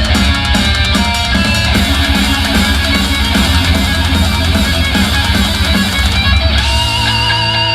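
Guitar-driven rock music with heavy bass, played through a TCL S642W 2.1 soundbar and its subwoofer. Near the end it changes to long held notes.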